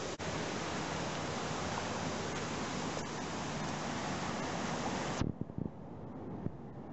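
A steady, even rushing noise that cuts off suddenly about five seconds in, leaving a quieter low rumble with a few faint clicks.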